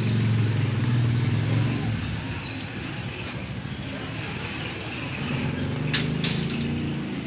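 A motor vehicle engine running close by, its low hum loudest in the first two seconds and rising again near the end. Two sharp clicks come about six seconds in.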